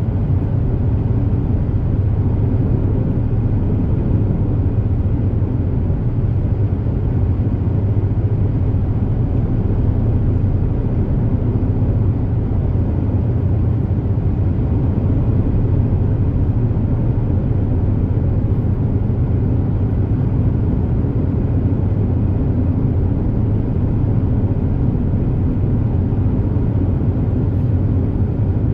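Super Jet high-speed ferry underway, its engines and hull noise heard as a steady low drone inside the passenger cabin.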